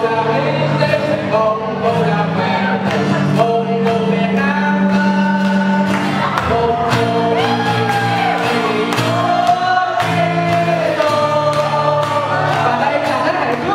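A mixed group of men and women singing a song together into microphones, with acoustic guitar accompaniment.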